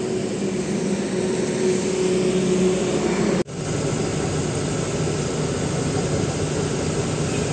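Steady vehicle engine drone with a held tone, broken off abruptly about three and a half seconds in; then an Ashok Leyland truck's diesel engine runs steadily under way, heard from inside the cab.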